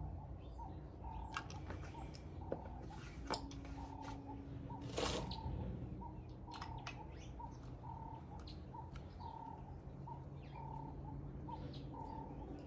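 Faint repeated bird-like chirps, a short call every second or so, over scattered light clicks and rustles of packaging being handled, with one short hiss about five seconds in.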